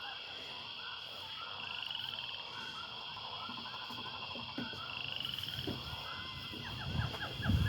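A chorus of many short, repeated chirping animal calls with a few quick trills, over a steady high background hum; a few low thumps near the end.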